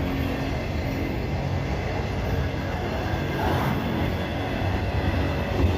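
Freight train of auto rack cars rolling past, the steel wheels making a steady rumble on the rails.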